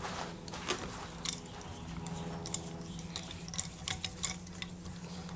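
Light, irregular metallic clicks and clinks of hand tools, a spark plug socket and ratchet, being handled and fitted, over a low steady hum.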